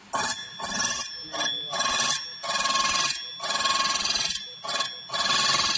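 Small key cutting machine's spindle cutter milling the cuts into a key: a loud, high-pitched metallic ringing that comes in about eight bursts with short gaps between them and stops near the end.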